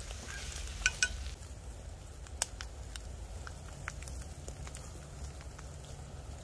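Wood fire crackling in a small folding camp stove: scattered sharp pops and clicks over a steady low rumble.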